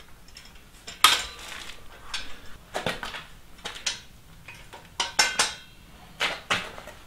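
Locking C-clamp pliers and steel parts clinking and clanking as pieces are clamped onto a steel frame: a string of separate sharp metallic clinks, the loudest about a second in and around five seconds in.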